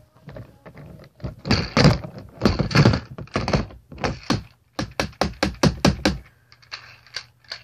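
Handboard deck clacking and knocking against a hard surface as it is popped and landed in tricks: a fast run of sharp knocks, heaviest in the first few seconds, then a string of crisper clicks and a few lighter taps near the end.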